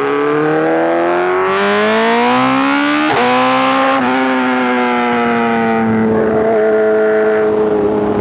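2024 BMW S1000RR inline-four superbike through an aftermarket titanium exhaust, heard from the rider's seat: the engine note climbs under throttle for about three seconds. A sharp break in the note follows, then it holds for about a second and falls slowly as the revs drop off.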